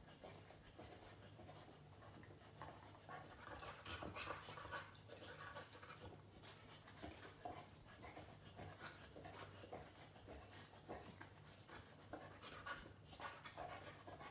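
Faint panting of a boxer dog lying in its crate, irregular breathy huffs over a steady low hum.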